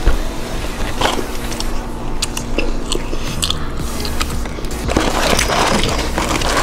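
Close-miked chewing and biting, with sharp crunchy clicks from the mouth. From about five seconds in, a denser crinkling rustle as a cardboard fries carton is handled.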